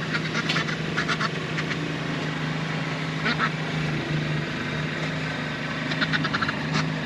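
Ducks quacking in four short bouts over the steady running of a Kubota B2650 tractor's diesel engine.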